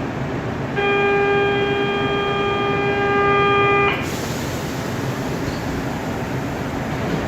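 Running noise inside a Mafersa-built CPTM Série 1700 electric multiple-unit car, with a single steady signal tone sounding for about three seconds, starting about a second in.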